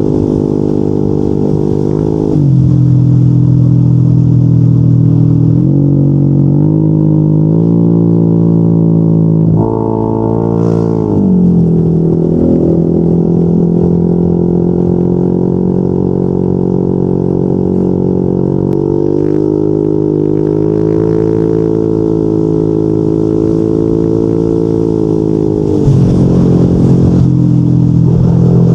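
Yamaha NMAX 155 scooter's single-cylinder four-stroke engine running through a Yoshimura RS2 aftermarket exhaust while riding, a steady droning note. The pitch shifts in steps as the throttle changes, dips and climbs back around ten to twelve seconds in, and changes again near the end.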